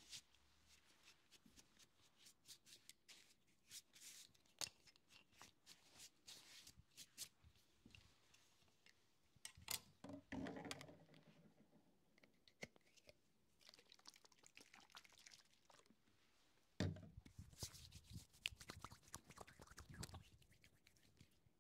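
Close-miked soft rustling, crackling and small clicks of hair being handled and styled, irregular throughout, with a denser, louder stretch about ten seconds in and another starting about seventeen seconds in.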